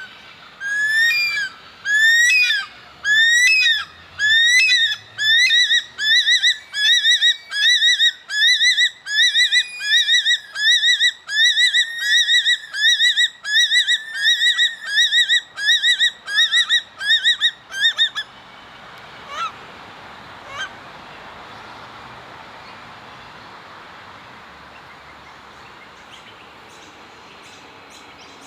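Bush stone-curlew giving its wailing call: a long series of high notes that each rise and fall, slow at first and then quickening to about two a second. The series stops abruptly about eighteen seconds in, followed by two faint notes.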